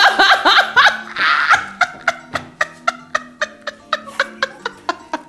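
A woman laughing hard: loud bursts of laughter in the first second or so, then a long run of breathy laughing pulses, about four a second, slowly fading. Quiet background music runs underneath.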